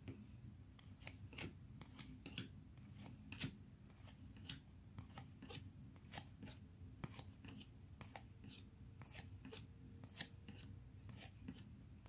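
Faint swishes of Panini Prestige football cards sliding off a stack one after another as a hand flips quickly through a pack, about one or two a second.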